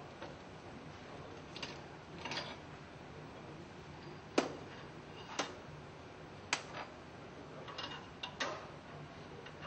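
Scattered light clicks and clinks of metal tools and parts being handled on a pump shaft as the impeller nut is taken off and the pedestal fitted: three sharp single clicks about a second apart midway, with softer ones before and after, over a faint steady hum.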